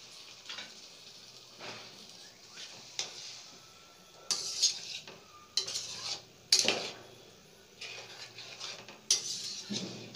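A metal ladle stirring a pan of brinjal curry thinned with tamarind water, clinking and scraping against the pan in irregular knocks, the loudest about four and a half and six and a half seconds in.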